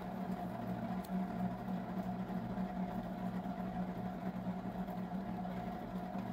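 Heat gun running steadily with a constant hum from its fan motor, blowing hot air to dry fresh chalk paint.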